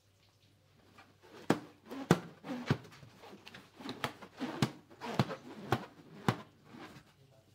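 Hands squeezing and rubbing an inflated latex balloon: a series of sharp knocks about every half second, with short rubbery squeaks in between, starting about a second and a half in.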